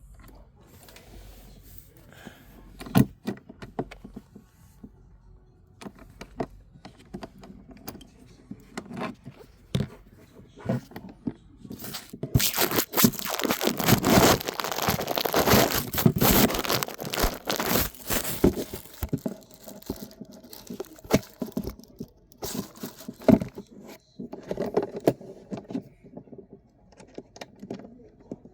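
Small metal nuts, bolts and washers clinking and scraping as they are handled and fitted by hand onto a toolbox latch clip, with sharp clicks throughout. About halfway through comes a longer, louder stretch of scraping and rustling lasting several seconds.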